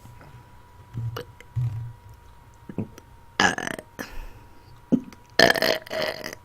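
A person belching repeatedly on command: a few short, low burps, then two long, loud ones about three and a half and five and a half seconds in.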